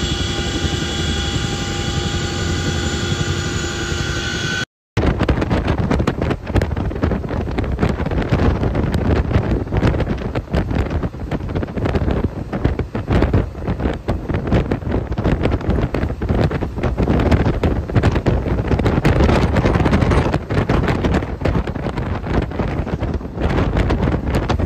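Helicopter turbine whine, several steady tones over a low rumble, cut off about five seconds in. Then loud, gusty wind buffeting the microphone from riding in the open back of a moving vehicle, over a low engine and road rumble.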